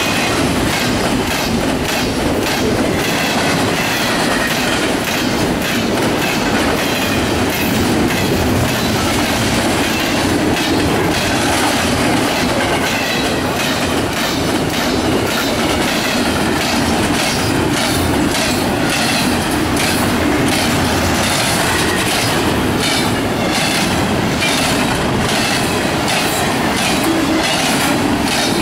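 CSX double-stack container train's well cars rolling past fast: a steady rumble of steel wheels on rail with rapid clicking over the rail joints, and a faint high wheel squeal that comes and goes.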